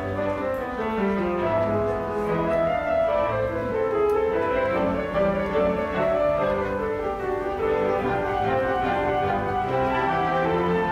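Background music: a calm orchestral piece with bowed strings and piano, sustained notes changing every second or so.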